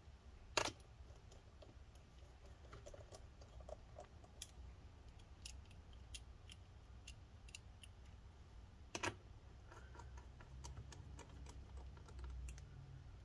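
Faint clicks and ticks of a small screwdriver driving the pentalobe screws back into a MacBook Pro's bottom case, with two louder knocks, about half a second in and about nine seconds in.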